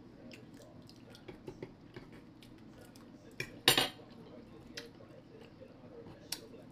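Metal fork tapping and scraping on a wooden cutting board as food is picked at, in scattered light clicks. The loudest is one sharp clatter a little under four seconds in.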